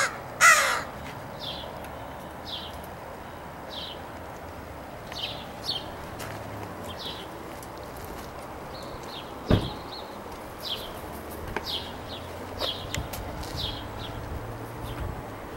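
Crows cawing: a loud harsh caw at the start, then a string of short, faint high calls about once a second. A single sharp knock sounds about nine and a half seconds in.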